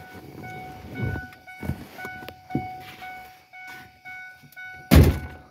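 A 1997 Ford F-150's warning chime dinging over and over, with a loud thump near the end.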